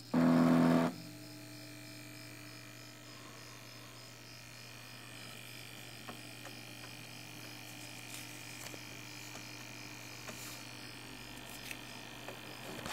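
Stepper motors of an Arduino CNC pen plotter whine through one short move for about the first second. After that comes a steady, faint electrical hum with a few light ticks.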